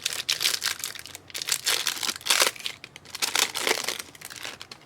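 Plastic wrapper of a trading card pack crinkling and tearing as it is handled and opened: an irregular run of crackles that dies away near the end.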